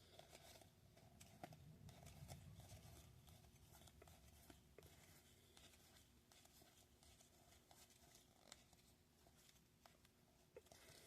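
Near silence with faint clicks and soft rustling as a stack of trading cards is handled and split in half.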